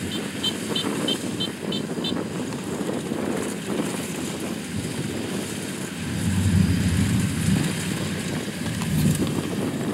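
Kubota DC70 Plus combine harvester's V2403 diesel engine and threshing machinery running steadily under load while harvesting lodged rice, a continuous low rumble that grows a little louder about six seconds in.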